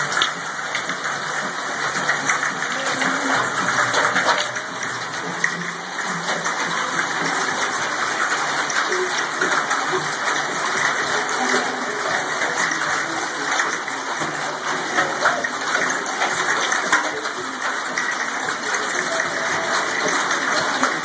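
Hail and rain of a hailstorm pelting metal stadium bleachers and the field: a loud, steady hiss full of small sharp ticks.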